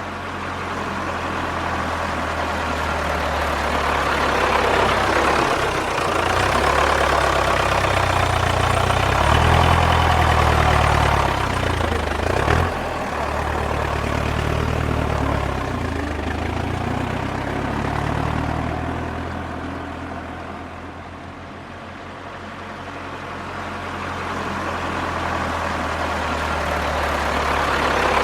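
Tractor engine running with a low, throbbing tone. Its pitch rises and falls a few times around the middle, and it grows louder, fades somewhat, then grows louder again near the end.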